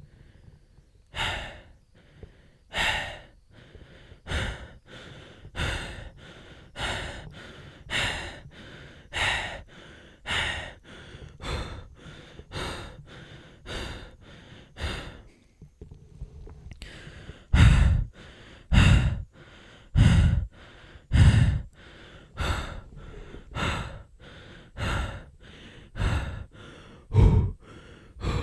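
A man breathing heavily and fast, out of breath: a steady run of loud in-and-out breaths, about one a second. About halfway through there is a short pause, after which several breaths come louder and deeper.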